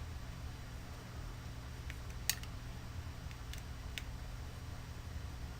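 A few light clicks and taps of 3D-printed plastic tank-track parts being handled, the loudest about two seconds in, over a steady low hum.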